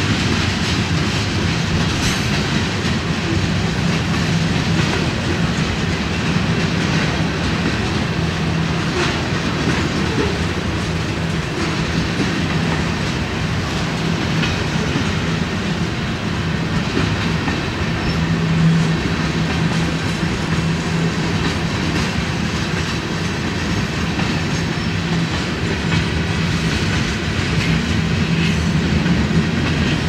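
Freight cars of a long mixed freight train rolling past: a steady rumble of steel wheels on rail, with scattered clicks as the wheels cross rail joints.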